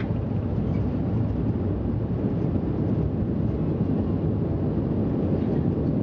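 Steady, loud low rumble inside the cabin of a Bombardier Dash 8 Q400 rolling out on a wet runway after touchdown. It comes from the Pratt & Whitney PW150A turboprop engines and propellers together with the main wheels rolling through spray.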